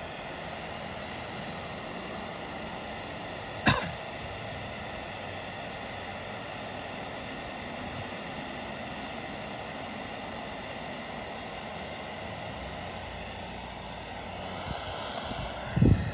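A steady hiss with one sharp click about four seconds in and a few knocks near the end.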